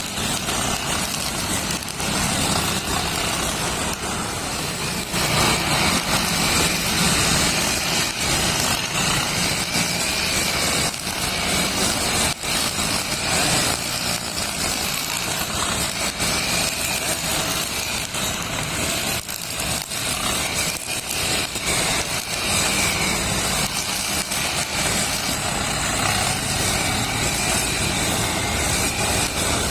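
Brush cutter with a nylon string head running at high revs while cutting grass. Its engine note wavers up and down, and it gets louder about five seconds in.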